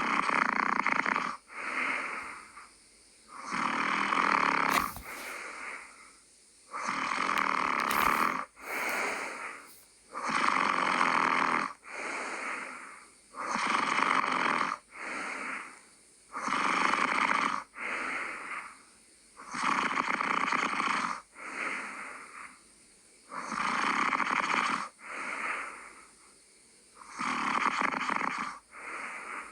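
Steady snoring: one breath about every three seconds, each a longer, louder snore followed by a shorter, weaker one, with a short quiet gap between breaths.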